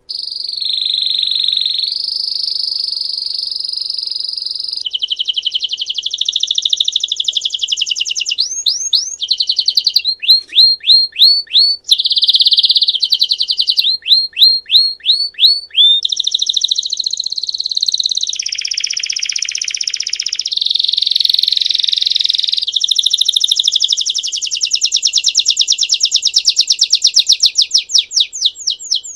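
Belgian canary singing a long, unbroken song in the 'campainha' (bell) style. Rolling trills held for a few seconds each alternate with runs of quick, sharply rising whistled notes, about four a second.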